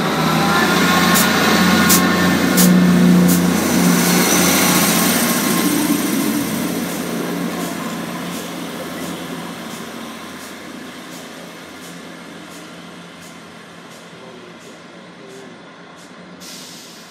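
Class 158 diesel multiple unit pulling away from the platform and receding: its diesel engines give a steady drone with a series of sharp clicks from the wheels over the rail joints. The sound is loudest a few seconds in, then fades steadily as the train draws away.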